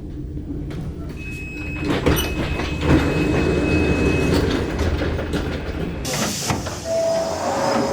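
Rail car interior with a steady low rumble, a steady high beep lasting about three seconds, a short burst of air hiss about six seconds in, then a descending two-note door chime near the end.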